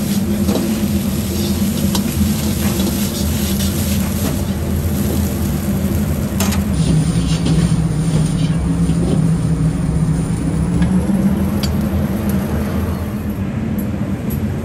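Fried rice sizzling in a wok over a loud, steady gas wok burner, with the metal ladle scraping and a few sharp clanks of the ladle against the wok as the rice is stir-fried and tossed.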